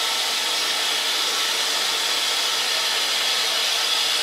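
Grizzly G0752 metal lathe running, its spindle turning a bar while the insert tool takes a roughing pass along the profile, making a steady whirring hiss.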